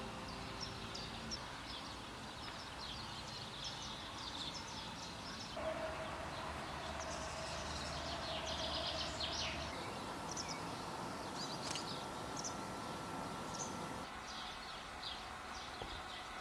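Quiet early-morning outdoor ambience: many small birds chirping and singing over a soft steady background noise.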